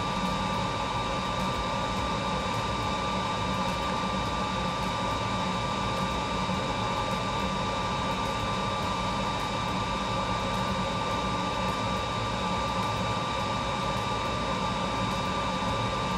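Steady whirring fan noise, unchanging throughout, with a faint constant high tone over it.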